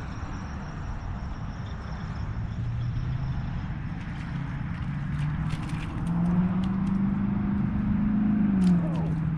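A road vehicle's engine, its pitch stepping up several times as it accelerates and dropping once near the end as it shifts gear, over a steady hiss of road noise. A few faint clicks come about halfway through and near the end.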